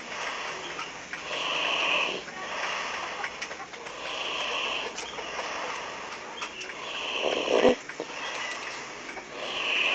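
Snoring in slow, regular breaths, about one every two and a half to three seconds.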